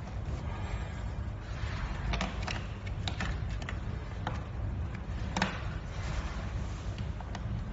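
Small scattered clicks and taps of AA batteries being handled and pressed into the plastic battery holder of an automatic soap dispenser, the sharpest about five and a half seconds in, over a steady low background hum.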